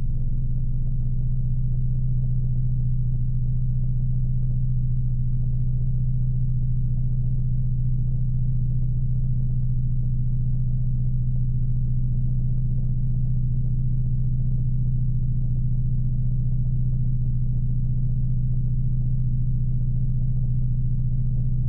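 A steady low drone holding one pitch, with a rumble under it and no change in level or pitch.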